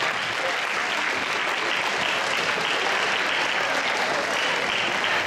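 A large audience of students applauding steadily, a dense continuous clapping.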